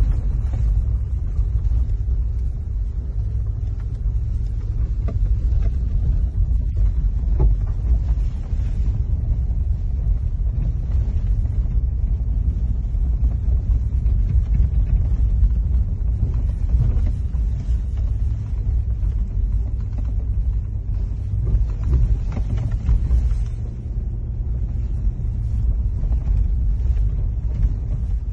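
Steady low rumble of a car driving over a rough unpaved road, heard from inside the cabin.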